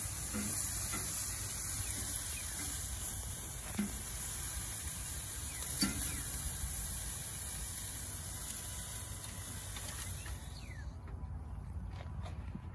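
Chicken sizzling on the hot grill grate of a Big Green Egg kamado, with a few sharp clicks of metal tongs. The sizzle cuts off abruptly near the end as the ceramic dome lid is shut.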